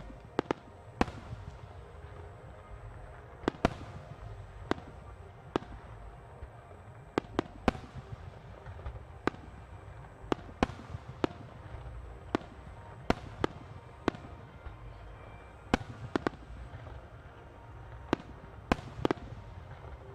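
Aerial firework shells bursting in an irregular run of sharp bangs, roughly one or two a second, over a continuous low rumble.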